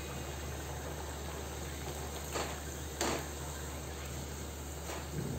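Breadcrumb-coated kebabs deep-frying in hot oil over a medium gas flame: a steady sizzle. A little after halfway there are two brief louder bursts as a slotted spoon turns the kebabs.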